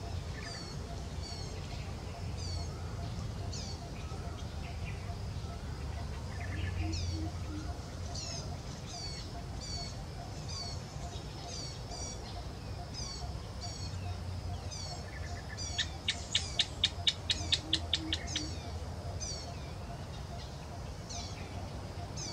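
Birds chirping again and again in short, high, downward-slurred notes. Past the middle comes a rapid rattle of about a dozen sharp clicks lasting some two seconds, the loudest sound. A low rumble runs underneath.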